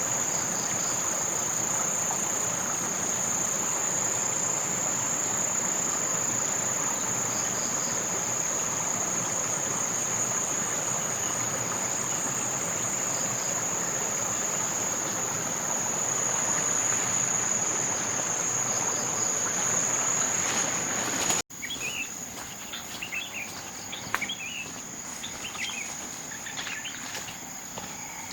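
A steady, high-pitched insect buzz (crickets or cicadas) with forest ambience. About 21 s in the sound cuts briefly; after that the buzz continues with short bird chirps and a single sharp click.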